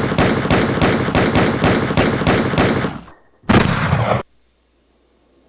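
Rapid automatic gunfire, about five shots a second for roughly three seconds, then a second, shorter burst half a second later; both stop abruptly.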